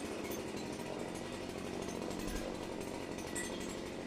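Stihl MS270 two-stroke chainsaw running steadily after a carburettor tune-up, the revived saw holding its run and sounding healthy.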